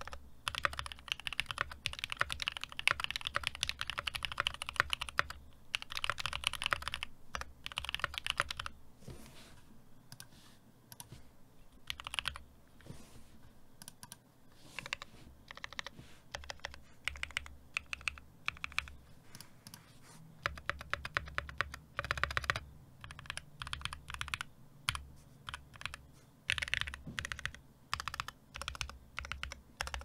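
Typing on an NK65 v2 65% mechanical keyboard with an aluminum plate and NovelKeys Cream linear switches. A fast, dense run of keystrokes for the first several seconds gives way to slower, scattered key presses, with quick bursts of typing again later on.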